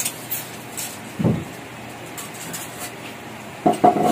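Light knocks and a dull thump on a newly built wooden stair-ladder as it is climbed, with a couple of louder, sharper knocks near the end, over a steady background noise.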